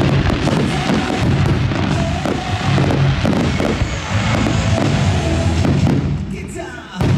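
Fireworks shells bursting and crackling over loud music, with the sound dipping briefly near the end.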